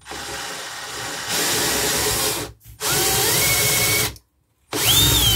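Handheld power drill with a 2 mm high-speed steel bit drilling pilot holes into an aluminium pedal enclosure. It runs in three bursts with short stops between, and its motor whine rises in pitch as it spins up each time.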